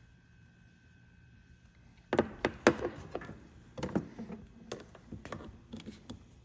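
Handling noise: a string of knocks, clicks and clatter as a small vibratory pump and a pair of pliers are moved about against the espresso machine's housing, starting about two seconds in.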